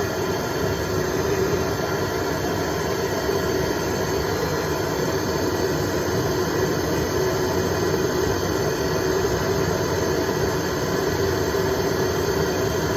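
Propane hand torch on a barbecue-size propane cylinder burning steadily, a constant hiss with a low steady hum, heating a 1/2-inch copper fitting to soldering temperature.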